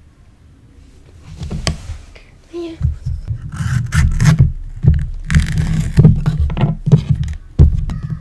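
Yellow bell pepper being pulled apart by hand right at the microphone: crisp cracking and tearing of the flesh with rubbing and scraping. It starts about a second in and comes in loud, uneven bursts.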